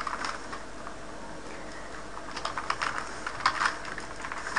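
Typing on a computer keyboard: a few quick keystrokes, a pause of about two seconds, then another run of keystrokes.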